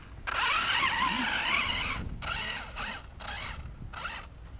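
Radio-controlled monster truck driving up a sand pile, its motor whining and wavering in pitch with the throttle. It is loudest for the first two seconds, then fainter as the truck climbs away.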